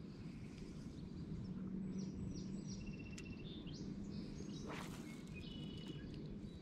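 Outdoor lake ambience: scattered short bird chirps over a steady low rumble, with one faint click about five seconds in.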